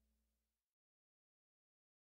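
Near silence: the last faint tail of the closing music fades out within the first second, then nothing at all.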